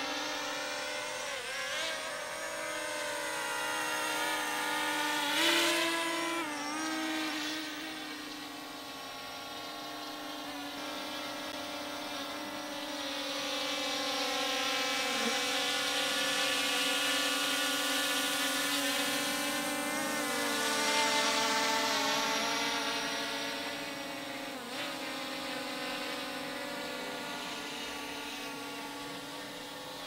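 Multirotor drone's propellers running with a steady, many-toned whine. The pitch wavers up and down for a couple of seconds about a fifth of the way in as the motors change speed. Through the middle it swells louder, as in a flyby, then eases off.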